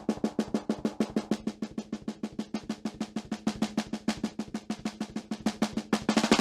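Recorded snare drum played back from its bottom microphone: a fast blast-beat run of snare hits, about ten a second. A cymbal wash swells in near the end.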